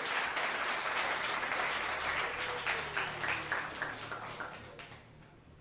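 Audience applauding. The clapping thins out to a few scattered claps about four to five seconds in, then stops.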